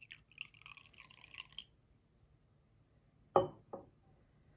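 Sake poured in a thin stream from a glass carafe into a small ceramic sake cup for about a second and a half. Then the glass carafe is set down on the table with two knocks, the first loud and the second quieter.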